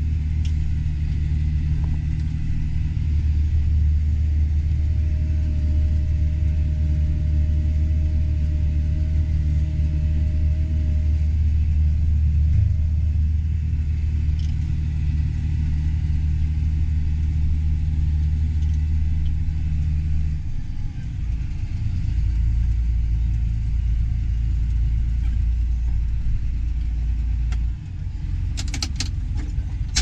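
John Deere tractor engine running steadily, heard from inside the cab while towing a grain cart. About two-thirds of the way through, the engine note drops lower, and it falls off again near the end, followed by a few sharp clicks.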